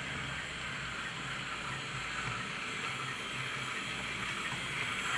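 Recorded G5 steam locomotive sound from a Zimo sound decoder with a YouChoos G5 sound project, played through the small speaker in the bunker of a Bachmann G5 0-4-4T model as it runs slowly. It is an even hiss with soft low pulses underneath.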